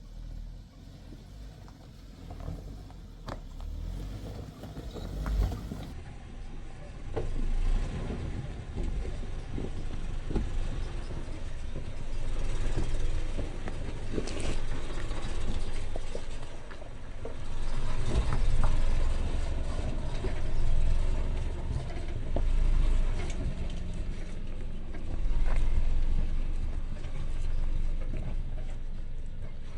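Suzuki Jimny driving on a rough dirt mountain road: a steady low rumble of the engine and tyres, with scattered knocks and rattles over the bumps, louder from about six seconds in.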